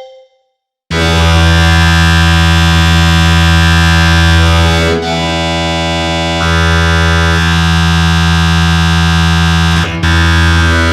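Black MIDI played through a software MIDI synthesizer: after a short silence, a loud wall of massed, sustained synth chords with thousands of notes sounding at once starts about a second in. The cluster shifts to a new chord about halfway through, again a second and a half later, and once more near the end.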